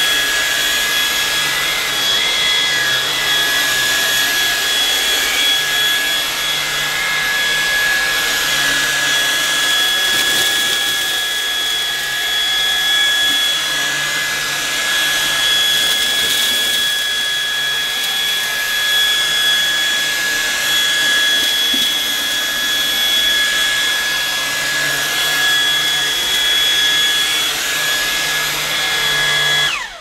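Lupe Pure cordless stick vacuum running steadily, a high motor whine over rushing air, as its floor head is pushed back and forth over wiry carpet picking up porridge oats and cornflakes. It switches off suddenly at the very end.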